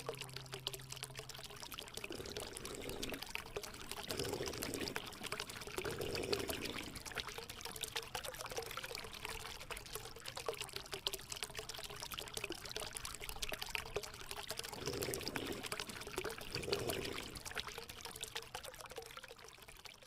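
Water splashing and trickling down a small homemade cement waterfall fountain, a steady crackly stream that fades out near the end.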